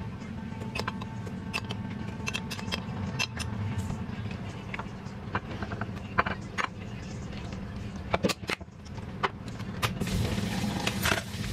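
Scattered clinks and taps of a metal spoon, plastic and glass food containers and a snap-on lid being handled on a kitchen counter. Near the end a kitchen tap runs into a stainless steel sink.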